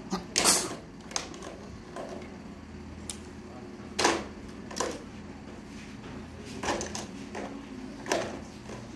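Hard plastic toys knocking and clacking as they are dropped into and handled in the bed of a plastic toy dump truck: a handful of irregular knocks, the loudest about half a second in and about four seconds in.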